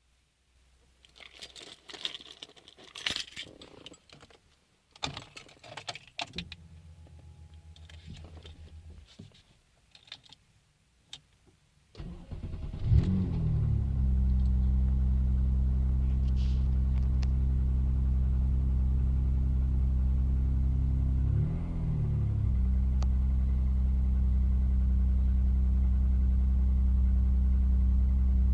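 Car keys jangle and click in the ignition for several seconds, then the MG ZS 180's 2.5-litre V6 is cranked and catches about twelve seconds in, settling into a steady idle that briefly wavers in speed partway through. The owner reports this engine as knocking.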